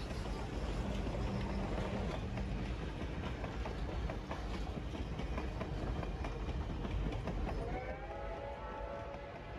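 Reading & Northern 2102 and 425 steam doubleheader passing, a steady rumble with the clatter of wheels on the rails. About eight seconds in, a locomotive's steam whistle starts blowing a steady chord that rises slightly in pitch as it opens.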